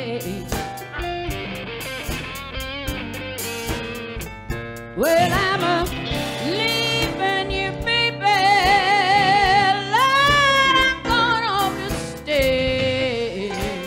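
Live blues band playing a slow blues on electric guitar and keyboard. Partway through, a lead line slides up and then is held with strong, wavering vibrato.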